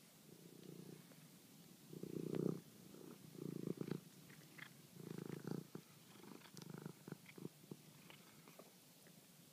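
Faint purring of a domestic cat in repeated spells of about half a second to a second each, with a few short clicks in the second half.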